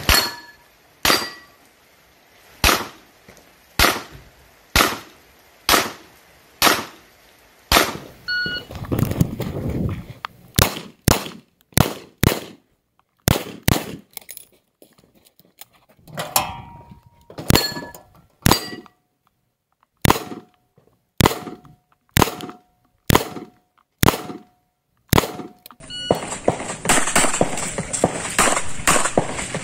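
Handgun shots fired in quick strings, about two dozen in all, spaced half a second to a second apart with short pauses between strings; many are followed by a brief metallic ring, as bullets strike steel targets. A steady hiss takes over for the last few seconds.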